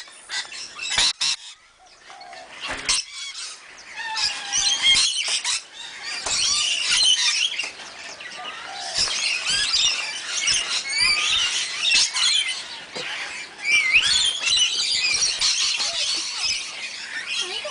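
A flock of lorikeets chattering and screeching, a dense, continuous mix of shrill high calls. The first couple of seconds are quieter, with a few sharp clicks, before the calling builds up.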